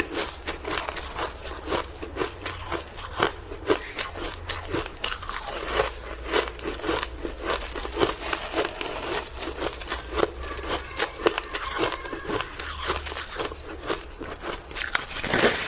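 Frozen shaved ice being crunched: dense, irregular crackling crunches, several a second, with a louder cluster near the end.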